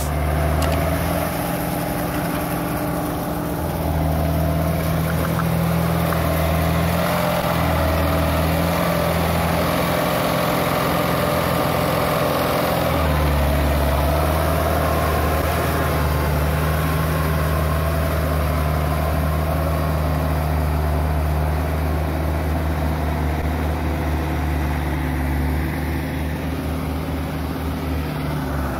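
Farm tractor's diesel engine running steadily as it works through wet paddy mud, its note shifting about halfway through.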